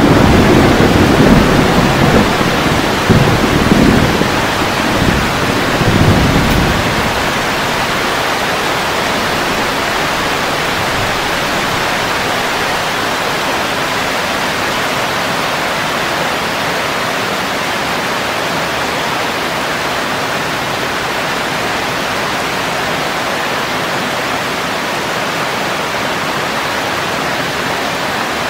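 Heavy rain falling steadily on leaves and foliage, an even hiss. A low rumble of thunder swells a few times and dies away in the first several seconds, leaving only the rain.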